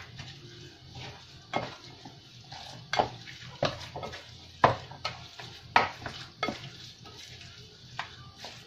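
Spoon stirring a raw ground-meat meatball mixture in a glass bowl, with irregular sharp clicks about once a second as the spoon knocks against the glass.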